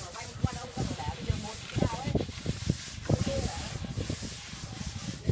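Plastering tools scraping and rubbing on cement render in irregular strokes, with sharp knocks between them.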